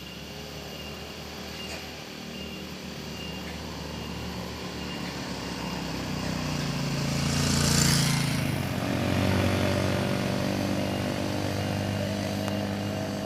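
A motorcycle engine climbing the grade toward the listener, growing louder until it passes close about eight seconds in with a rush of hiss. An engine note carries on after the pass.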